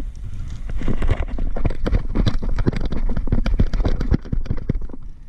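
Running footsteps on hard, dusty ground, an uneven patter of several steps a second, with wind buffeting the microphone.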